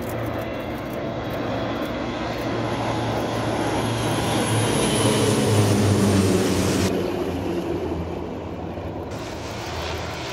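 A formation of turboprop aircraft, twin- and single-engine, flying past overhead. The engine drone and a high turbine whine build to a peak about five to six seconds in, then drop in pitch and fade as the formation passes.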